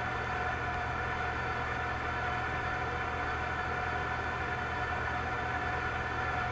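Steady mechanical hum of a running machine, with a constant whine on top and no change throughout.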